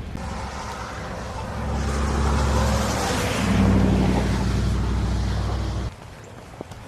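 A motor vehicle going close by: a low engine hum with tyre hiss that builds to a peak around the middle, then cuts off abruptly near the end.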